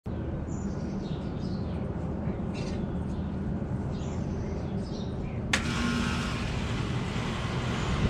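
2000 Bryant 2-ton heat pump outdoor unit with a Copeland reciprocating compressor, starting up in heat mode: a steady low hum, then a sharp click about five and a half seconds in, after which a louder, even rushing noise builds.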